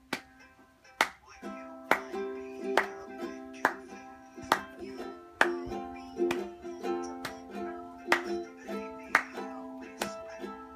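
Ukulele strummed in a slow, even rhythm, a strong stroke about once a second with lighter strokes between, the chords ringing on and changing every few strums.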